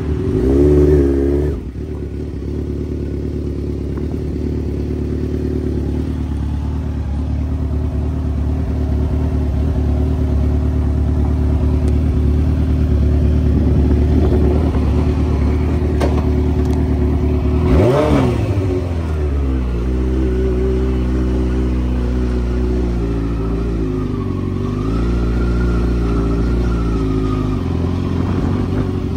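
Suzuki GSX-R 1000 inline-four engine idling steadily. About eighteen seconds in, one quick throttle blip sends the revs up and straight back down to idle.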